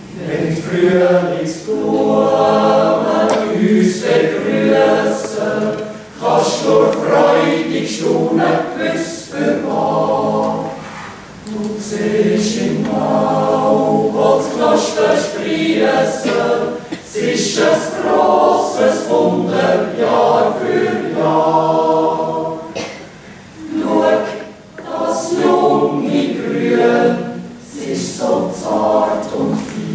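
Mixed Swiss yodel choir of women and men singing a cappella in long phrases, with short breaks for breath between them.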